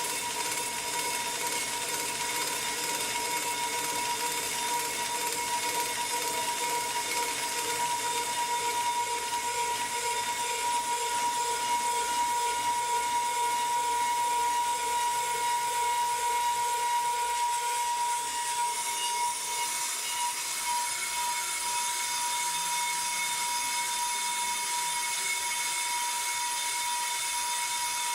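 Pro-Cut on-car brake lathe running, spinning the brake rotor while its cutting bits skim both faces to true it. A steady high whine throughout, with a pulsing undertone that fades about two-thirds of the way through.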